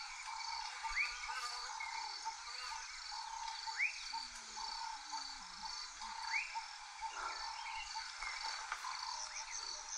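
Bush ambience: a steady pulsing chorus of frogs and insects, with a short upward-sliding call repeating every two to three seconds.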